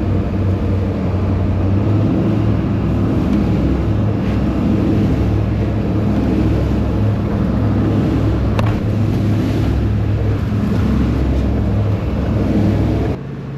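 Motorboat under way: its engine runs steadily with a constant low drone, under a broad rushing noise. A brief knock comes about eight and a half seconds in.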